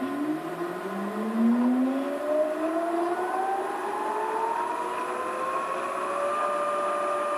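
Inverter-driven interior permanent magnet synchronous motor whining as it speeds up, the pitch rising smoothly for about six seconds and then holding steady.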